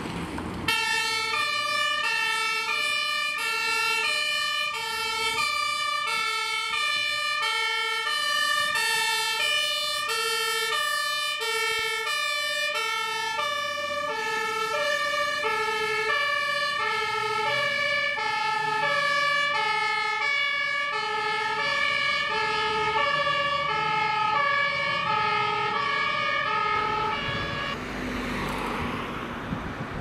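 Fire engine's German two-tone siren (Martinshorn) alternating evenly between a high and a low note as a MAN TLF 4000 tank pumper drives off on an emergency run. It cuts in abruptly under a second in and stops a few seconds before the end.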